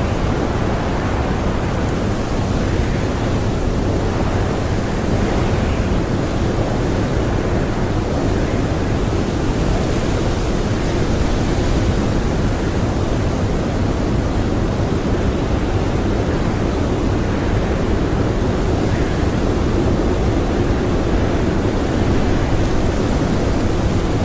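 Blizzard wind blowing hard and steadily, a dense rushing noise heaviest in the low range with no let-up.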